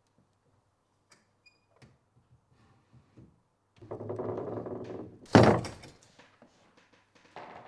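A few faint ticks and taps, then a rough sliding rumble for about a second and a half, ending in one loud, sharp thud that rings out briefly.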